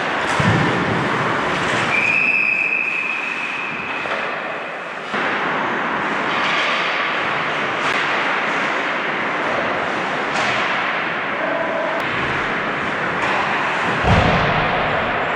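Ice hockey game sounds in an echoing rink: skate blades scraping the ice, sharp clacks of sticks on the puck, and low thuds of the puck or players against the boards, the loudest near the end. A high steady tone sounds for about three seconds near the start.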